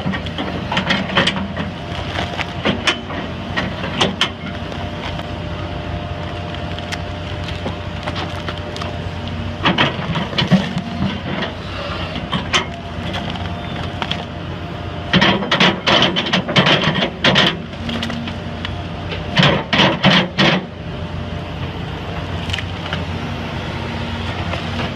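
Heavy machine running steadily, broken by several clusters of sharp cracks and knocks, the loudest batches about two-thirds of the way through.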